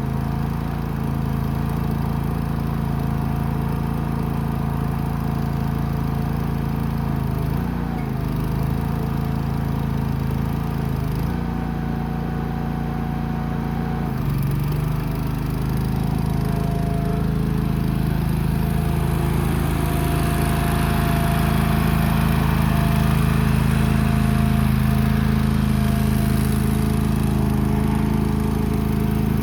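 Small engine of a Go For Digger compact backhoe running steadily, its speed dipping briefly a couple of times in the first half, then running a little faster and louder from about halfway.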